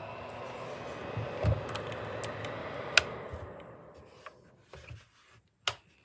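Small ceramic space heater's fan running with a steady whir, a few handling knocks, then a sharp click about three seconds in, after which the fan winds down and fades out over the next two seconds as the heater shuts off. A couple of small knocks and a click follow near the end.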